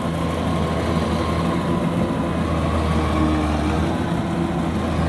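Kubota DC93 tracked combine harvester running in deep, waterlogged mud; its diesel engine holds a steady, even hum.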